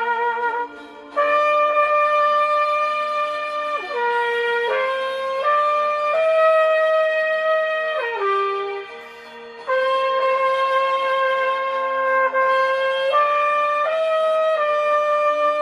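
Solo trumpet playing a slow melody in long held notes that step up and down in pitch, with short breath breaks about a second in and again around nine seconds.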